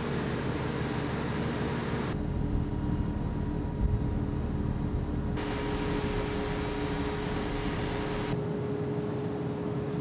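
Steady drone of a ship's machinery with several fixed tones. A hiss above it drops away and returns abruptly a couple of times.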